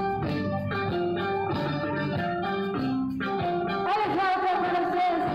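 Live Latin band music: a melody of held, stepped notes over bass and drums, then a woman's voice comes in singing about four seconds in. The band has accordion, electric guitar, keyboard and drums.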